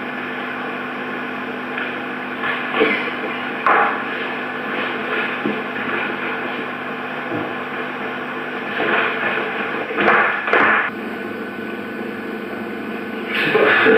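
Steady electrical mains hum on an old video recording, with two short knocks about three and four seconds in and brief rustling bursts around ten seconds in.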